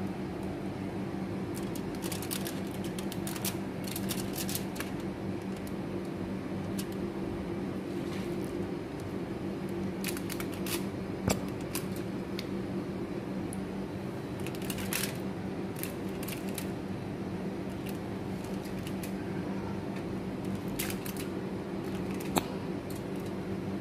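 Steady low hum with scattered light clicks and crinkles from a plastic sauce squeeze bottle and aluminium foil being handled, the sharpest ticks about 11 and 22 seconds in.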